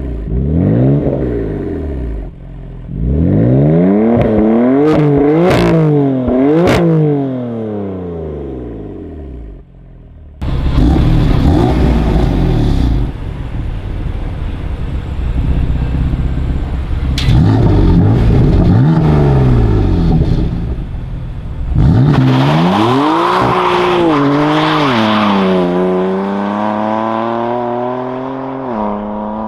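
BMW M4 (F82) twin-turbo straight-six exhaust revving several times, its pitch rising and falling, with two sharp cracks on the revs. It is then heard accelerating hard, the pitch climbing and dropping at the gear changes.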